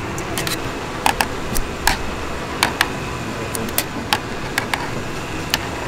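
A dozen or so sharp, irregular clicks and light knocks over a steady low background hum.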